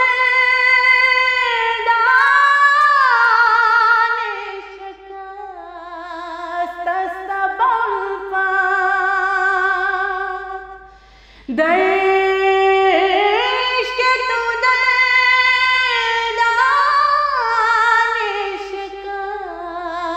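A woman singing a naat unaccompanied, in long melismatic phrases with held, wavering notes and gliding ornaments. The voice sinks quieter in the middle, breaks for a breath about eleven seconds in, then comes back strongly.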